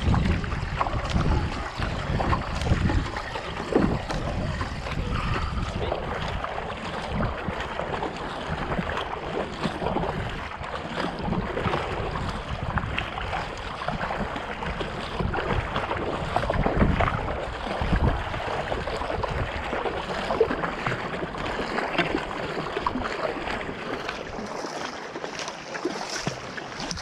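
Kayak paddles dipping and splashing at an irregular pace, with water lapping along the hulls and wind buffeting the microphone.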